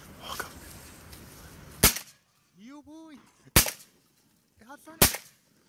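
Three shotgun shots, about a second and a half apart, with short pitched calls that rise and fall between the shots.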